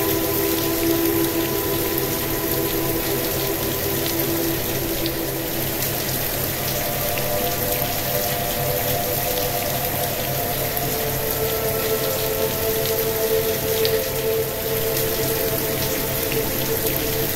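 Steady rain hiss with scattered fine drop ticks, mixed with a soft sustained drone of delta-wave sleep music. The drone's chord shifts about six seconds in and again about ten seconds in, over a low pulsing hum.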